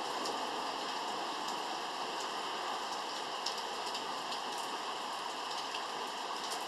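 Rain falling steadily, an even hiss with a few sharp taps of single drops scattered through it.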